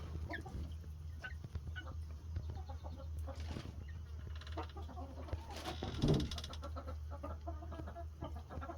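Meat chickens clucking and making short calls, scattered and overlapping, over a steady low hum.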